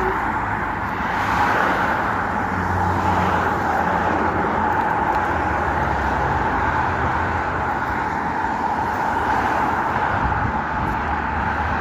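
Steady road traffic noise, cars going by.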